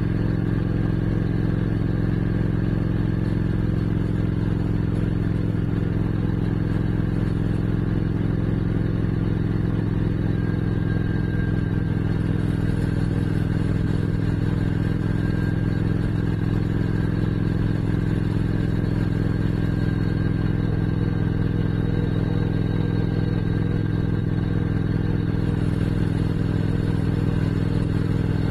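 Motorcycle engine running steadily at cruising speed, holding an even pitch with no revving or gear changes.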